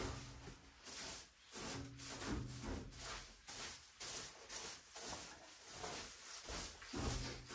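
A shovel scraping and pushing straw litter across an earthen floor, one stroke after another, about two strokes a second.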